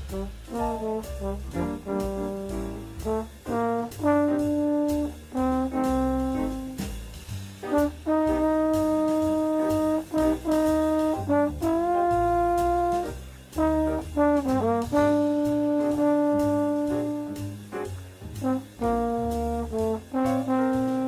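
Slide trombone playing a jazz line, quick runs of notes broken by long held notes, over a backing with a walking bass line underneath.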